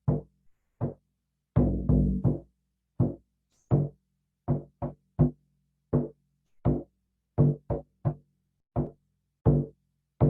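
A hand drum struck with single, unevenly spaced beats, each stroke ringing on briefly with a low tone, with a quick flurry of strokes about two seconds in and a few quick double beats.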